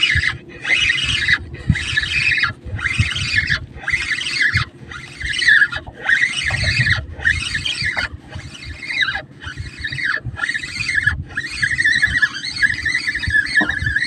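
Fishing reel whirring in regular pulses, about one and a half a second, as a hooked fish is reeled in on a bent rod.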